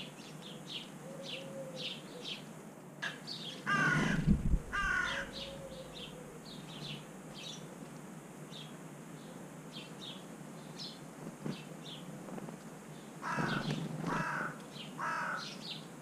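Carrion crow cawing: two caws a few seconds in, then three more near the end, over repeated small high chirps of sparrows.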